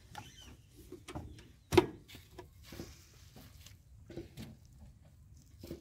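Small knocks and cloth rubbing from handling a Swaraj tractor's dashboard and body while its engine is off, with one sharp, much louder knock a little under two seconds in.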